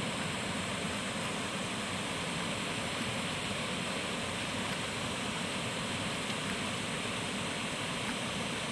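A small waterfall pouring over rocks into a pool: a steady, even rush of water.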